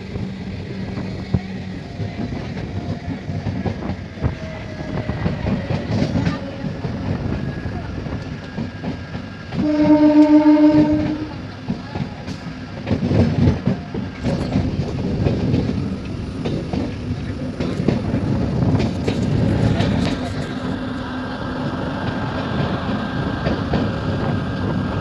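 Passenger train running, a steady rumble with wheel clatter. About ten seconds in, the train horn sounds once for about a second and a half, the loudest sound.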